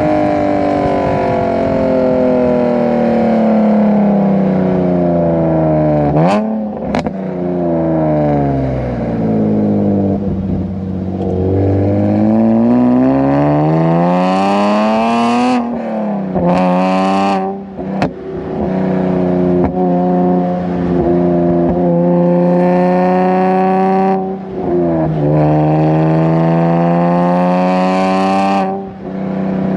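Nissan 370Z's V6 engine breathing through aftermarket PPE headers while driving. The revs sink, then climb again with brief breaks like gear changes, and settle into stretches of steady throttle.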